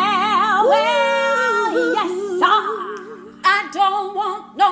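A woman singing long held notes with a wide, fast vibrato and sliding pitch, over a steady low held tone. Short broken phrases follow in the second half.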